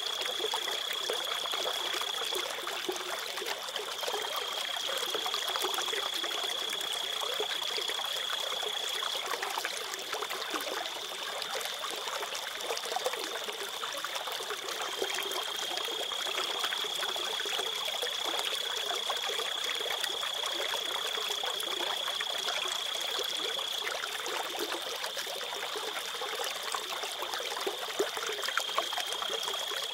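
River water trickling and running as a steady, even hiss, with a thin, high steady tone that stops and starts several times over it.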